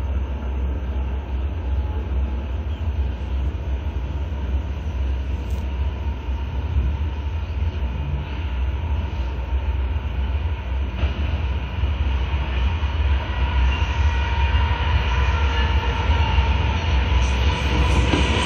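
Approaching CN freight train with two diesel locomotives leading, a steady low rumble that grows gradually louder as the lead units close in. It is loudest near the end as they arrive alongside.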